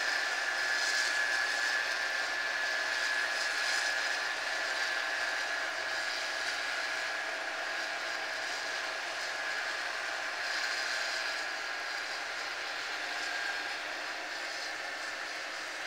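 Harvest machinery running steadily: a continuous mechanical drone with a steady high whine through it.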